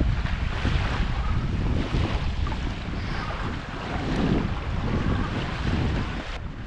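Wind buffeting the microphone in gusts, over small bay waves washing onto the beach.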